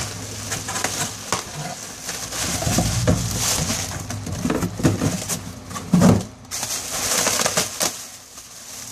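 Packing material rustling and crinkling as parts are unwrapped from an engine rebuild kit, with scattered irregular clicks and taps of handled pieces.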